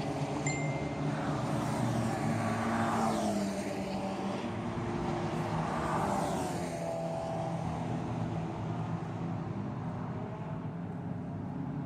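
Track cars at full speed on a race circuit's main straight, engines running hard past the trackside, each note swelling and falling in pitch as the car goes by, with the last pass about six seconds in and then a fainter distant drone.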